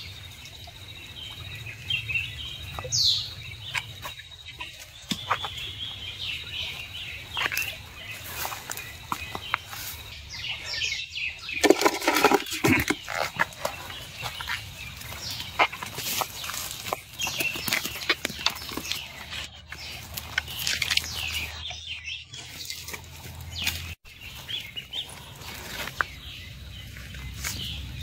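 High, short chirping calls now and then over scattered clicks and rustling, with a louder, denser burst of sound about twelve seconds in.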